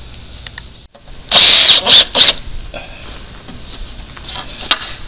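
Cordless power drill driving screws into the wood fence in three loud bursts, one of about half a second and then two short ones, starting a little over a second in.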